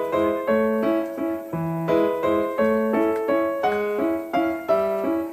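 Piano music: a steady, brisk run of single notes, about three a second, each struck and then fading.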